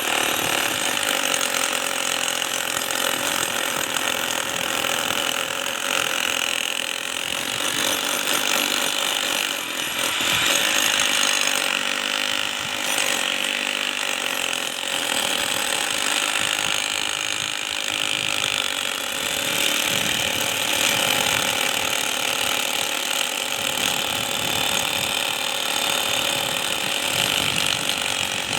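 A power tool working on a reinforced concrete road, running continuously with a fast, even mechanical rattle.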